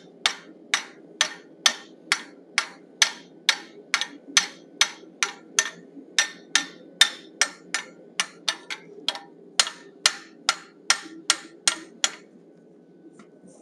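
Rounding hammer striking steel on an anvil in steady blows, about two a second, stopping about twelve seconds in: forging down the flare on the lower face of a forged bison head. A steady low hum runs underneath.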